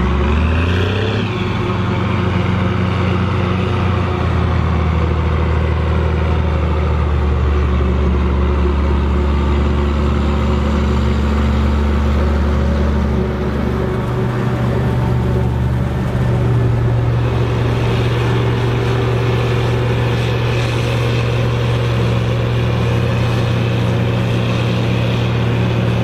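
Case 2294 tractor's six-cylinder turbo diesel and a self-propelled forage harvester running together under load while chopping maize into a forage wagon, a steady heavy diesel drone. The engine pitch rises briefly about a second in and shifts again about two-thirds of the way through.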